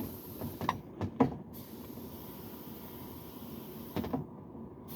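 A few short, light knocks and clicks from equipment being handled, in two clusters: three about a second in and two about four seconds in, over a steady faint hiss.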